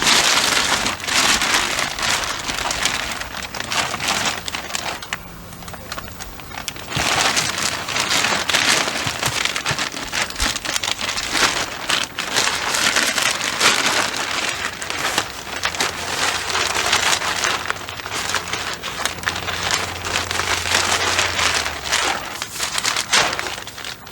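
Synthetic house wrap crinkling and rustling as it is handled, a dense crackling that swells and eases in waves.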